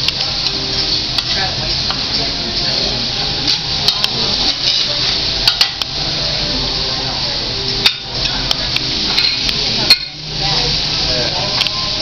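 Food sizzling on a hot steel teppanyaki griddle, with sharp irregular clicks and scrapes of a metal spatula against the griddle.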